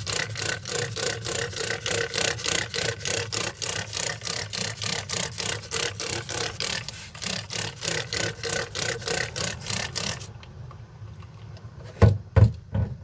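Rapid back-and-forth hand scrubbing of a panel being cleaned before cutting, about four strokes a second, stopping about ten seconds in. Two loud knocks follow near the end.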